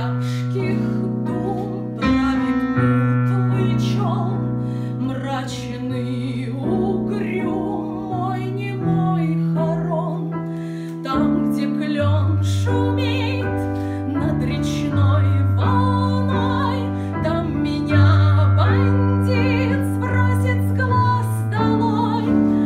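A solo singer in a full, operatic style with vibrato, accompanied by piano playing sustained bass notes that change every second or two.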